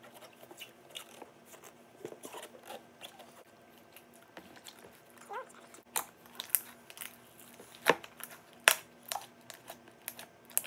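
Homemade white slime being worked in a large plastic tub: irregular wet clicks and crackles, with a few sharper snaps in the second half.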